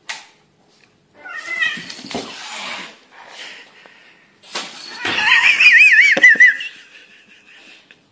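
A cat yowling in two wavering, high-pitched calls, the second, about five seconds in, louder and longer than the first.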